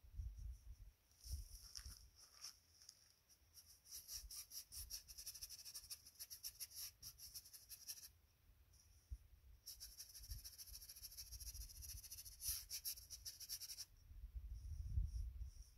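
Insects chirring in two long runs of fast, high-pitched ticking, with a low rumble of wind on the microphone at the start and near the end.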